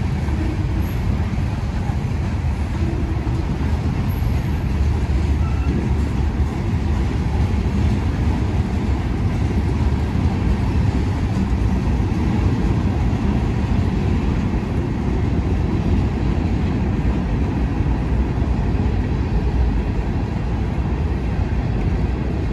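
Freight train's cars rolling past on the rails, a steady low rumble as boxcars and then covered hopper cars go by.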